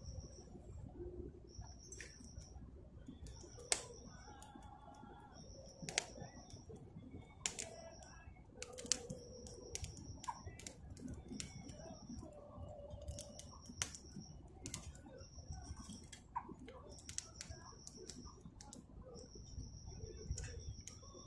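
A high, steady animal call about a second long, repeated every one to two seconds, with scattered sharp clicks throughout.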